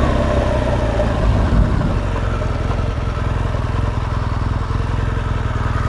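BMW R1200 GS boxer-twin engine running steadily under way, with wind noise over the microphone.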